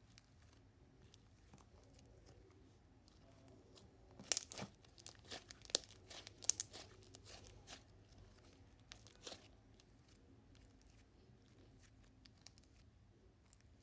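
Slime being squeezed and poked, giving a string of sharp crackling and popping clicks, most of them bunched between about four and nine seconds in.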